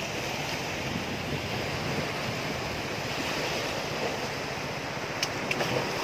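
Large ocean waves breaking on a rocky shore: a steady, rumbling wash of surf.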